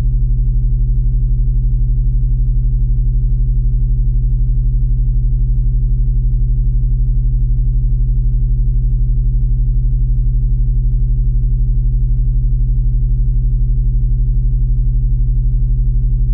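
Background music: a single low, sustained synthesizer-like drone held unchanged on one pitch, its level pulsing in a fast, even tremolo.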